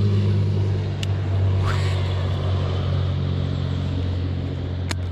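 A bass boat's motor running steadily at a constant pitch, with a couple of faint clicks.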